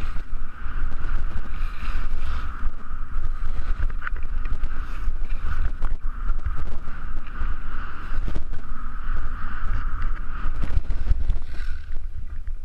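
Wind rushing and buffeting over the microphone of a skier moving fast downhill, with the steady hiss and scrape of skis running over chopped-up snow.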